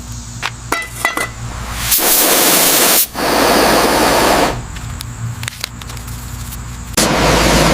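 Pressurised spray hissing in three bursts: one about two seconds in, a longer one just after, and another near the end, with a low hum and light clicks in the quieter gaps.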